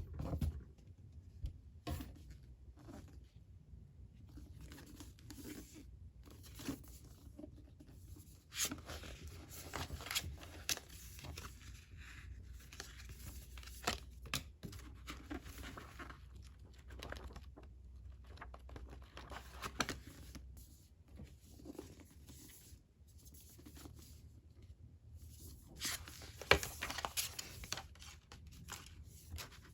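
Packaging being torn open and crinkled by hand, in irregular rustling bursts with scattered sharp clicks and handling knocks.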